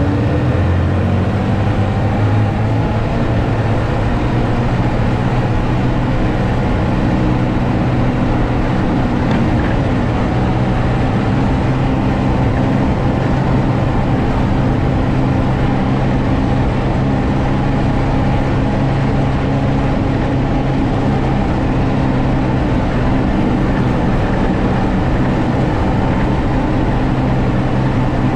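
Ski-Doo snowmobile engine running steadily under way across snow, holding an even pitch, with a steady rushing noise underneath.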